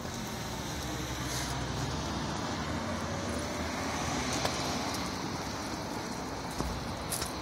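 Street traffic noise, with a car driving past around the middle.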